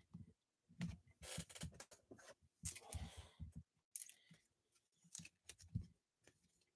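Near silence with faint, scattered clicks and rustles: trading cards being handled and slid over one another as they are sorted.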